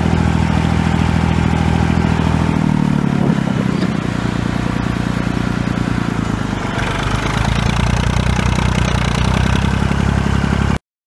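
Massey Ferguson 35 tractor engine running while driven. About three seconds in the engine note drops, and near seven seconds it picks up again. The sound cuts off abruptly near the end.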